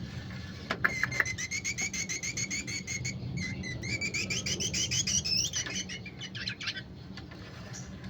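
Ashy drongo calling: a rapid, even string of short chirped notes, about five or six a second, lasting some six seconds and rising a little in pitch partway through, after a few sharp clicks at the start.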